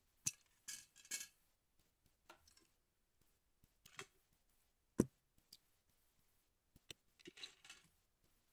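Scattered plastic clicks, taps and clatter of an Xbox Series controller being taken apart by hand, its shell pieces and circuit board handled and set down, with one sharp knock about five seconds in.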